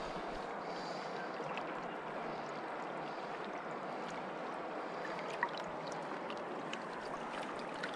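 Steady rush of river water flowing over stones, with one faint click about five and a half seconds in.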